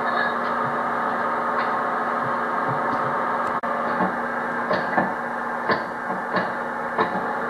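Repair work on a log truck's brakes: a run of sharp knocks, roughly one every half second in the second half, over a steady shop hum.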